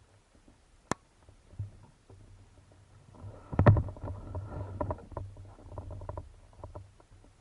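Underwater gurgling and bubbling heard through a camera housing: a sharp click about a second in, then a couple of seconds of low rumbling with scattered clicks, loudest at its start.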